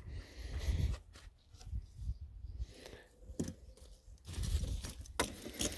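A ratchet strap being handled: rustling of the webbing with scattered sharp clicks and knocks, several of them in the second half.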